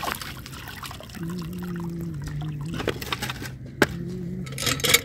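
Water sloshing and trickling as cut fish pieces are washed by hand in a steel bowl of water, with a low steady hum coming and going and a single sharp click about four seconds in.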